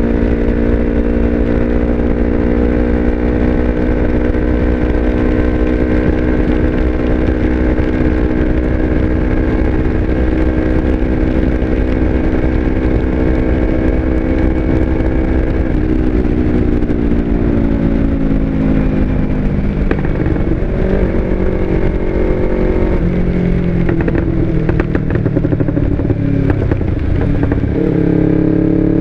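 Yamaha R25's 249 cc parallel-twin engine through an Akrapovic exhaust, heard from the rider's helmet, running at steady revs for about half the time. The revs then drop off, change in steps as the rider works through the gears, and pick up again near the end, with wind rumble underneath.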